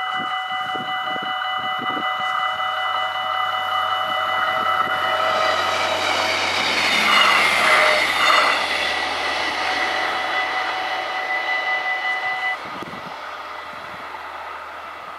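Level-crossing warning bells ringing steadily while an Arriva GTW diesel multiple unit passes over the crossing, its noise swelling to a peak about halfway through and then fading. The bells cut off suddenly a little over three-quarters of the way through.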